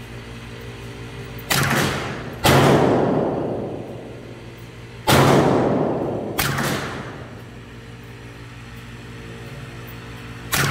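Five shots from a CBC 7022 semi-automatic .22 LR rifle, unevenly spaced (two about a second apart, then two more, then one near the end). Each is a sharp crack with a long reverberating tail in an indoor range, over a steady hum.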